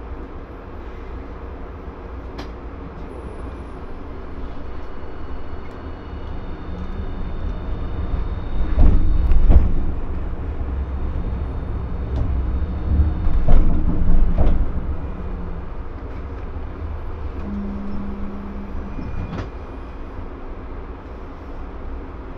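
Hiroshima Electric Railway streetcar running, heard from on board: a steady low rumble of motors and wheels on the track. It grows louder with bursts of knocking and clatter about nine seconds in and again around thirteen to fourteen seconds, then settles.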